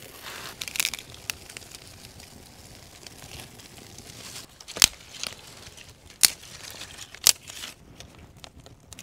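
Freshly lit birch bark and kindling burning in a fire pit, crackling with many small ticks and three sharp, loud pops about five, six and seven seconds in.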